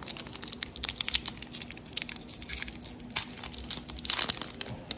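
Foil trading card pack (NBA Hoops) being torn open by hand: a run of short crinkling crackles, with a longer, louder tearing noise about four seconds in.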